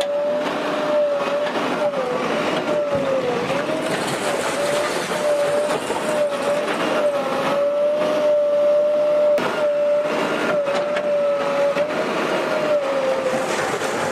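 Bulldozer at work: engine running with a steady, slightly wavering high whine, and a few sharp knocks.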